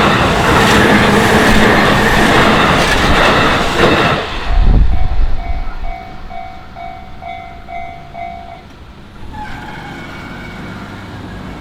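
A train on the JR Yokohama Line passing over a level crossing, its wheels clattering loudly, until it clears about four seconds in with a low rush of air. The crossing's warning bell then stands out, ringing in quick repeated pulses, and stops just past two-thirds of the way through.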